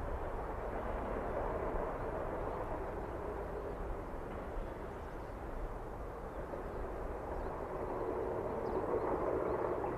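Distant train running, heard from high above the line: a steady rumble that grows louder in the last couple of seconds.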